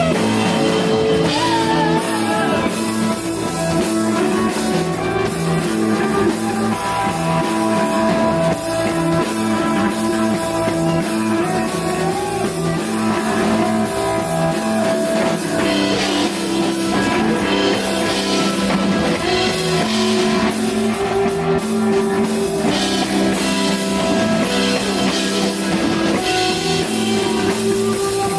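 Rock band playing live: electric guitar holding sustained melodic notes over a drum kit, steady and loud throughout.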